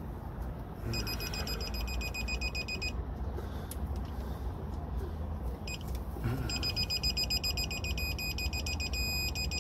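Digital torque wrench beeping as a cylinder head bolt is pulled up to 115 ft-lb: a high, fast-pulsing beep for about two seconds, then again from about six and a half seconds in, settling into a steady solid tone near the end, the signal that the set torque is reached.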